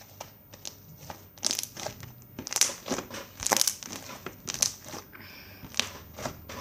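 Slime full of foam beads being squeezed and kneaded by hand, giving irregular crackling pops and squishes, as red colouring is worked into it.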